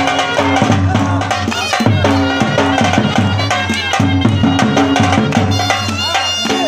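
Shina folk song from Gilgit-Baltistan playing, with drums beating under a melody line.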